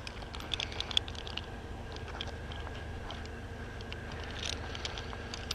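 Scattered crunches and sharp clicks of climbing spurs biting into the wood of the spruce trunk as a climber works his way up it.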